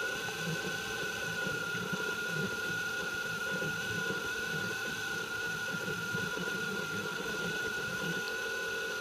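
M3D Micro 3D printer running a print: its stepper motors warble and buzz in quickly shifting pitches as the print head traces the outline, over a steady high whine.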